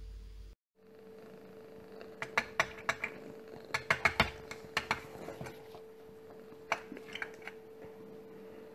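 A cat's paw, claws and a small object clicking and tapping on a glass tabletop, in an irregular run of sharp taps and then a few more later, over a steady low hum.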